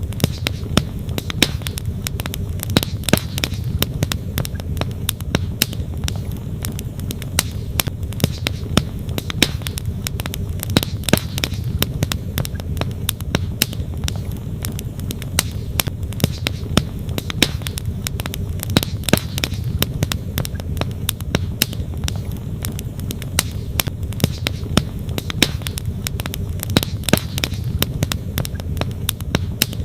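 Wood campfire crackling, with frequent sharp pops and snaps of burning logs, over a steady low rush of flowing stream water.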